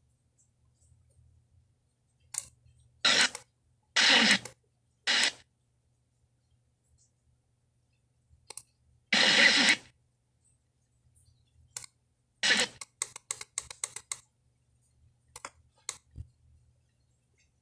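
GoTo M300 car stereo tuning across the FM band: short bursts of static and snatches of stations cut in and out between silent gaps, with a quick run of clicks about two-thirds of the way through.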